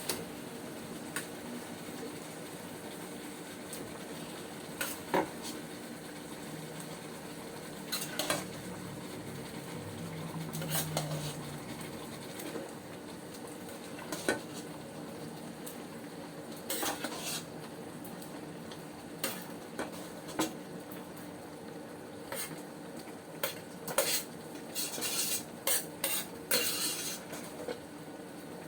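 A utensil stirring in a cooking pot, clinking and scraping against the pot in scattered knocks that come more often near the end, over a steady low sizzle. The mung beans have just been added to the sautéed pork.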